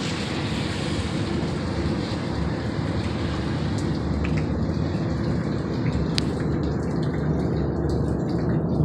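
Loud, steady low rumble with a faint droning hum, a noise from the sky that the uploader cannot identify and says is neither an airplane nor a train. A few faint clicks sit on top of it.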